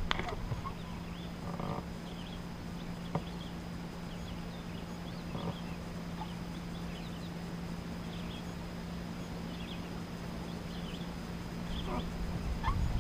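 Birds chirping and calling faintly in short scattered notes over a steady low hum, with a low rumble building near the end.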